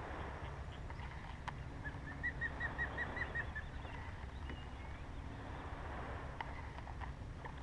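A bird calling a quick series of about eight short, evenly spaced chirps, about two seconds in, over a steady low rumble.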